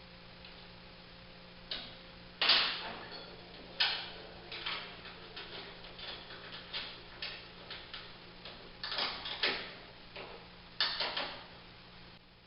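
Irregular metallic clicks and knocks of hand tools and bolts as a tailgate latch is bolted into a fiberglass tailgate, the sharpest knock about two and a half seconds in, over a faint steady hum.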